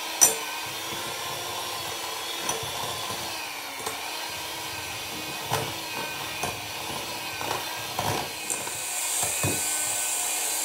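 Electric hand mixer running steadily, its beaters creaming softened butter and sugar in a glass bowl, with occasional sharp knocks. The loudest knock comes a moment in, and it turns hissier in the last couple of seconds.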